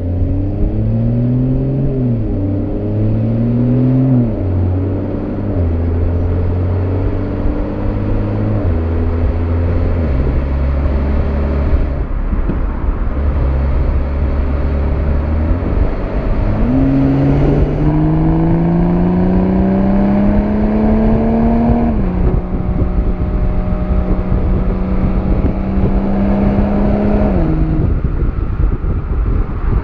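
Exhaust of a 2020 BMW M340i's 3.0-litre turbocharged inline-six, heard right at the tailpipe in SPORT+ while driving: the revs climb and fall through several quick automatic gear changes early on, then a longer pull rises from about halfway through. It shifts up, holds steady revs for a few seconds, and drops off near the end.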